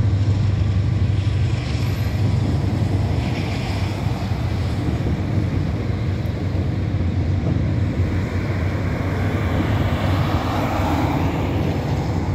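CSX intermodal freight train rolling past, a steady rumble of its container cars on the rails, mixed with cars driving by close at hand.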